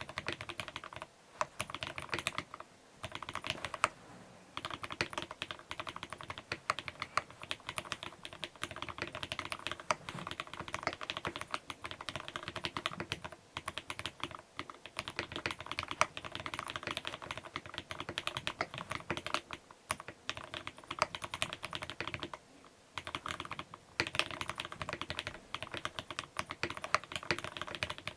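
Fast continuous typing on a custom mechanical keyboard with vintage Cherry MX Black linear switches, lubed and fitted with heavier springs, in a brass-plated, top-mounted case with foam inside: a dense stream of key clacks, broken by a few short pauses.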